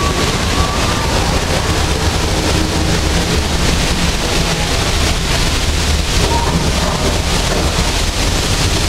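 Torrents of water from a theme-park flash-flood effect pouring down a rock canyon and splashing against the tram's windows: a loud, steady rush.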